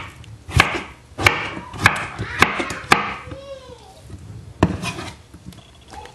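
Kitchen knife chopping cantaloupe on a wooden cutting board. Five evenly spaced strokes come about every 0.6 s, each a sharp knock on the board followed by a short slicing rasp. After a pause there is one more stroke.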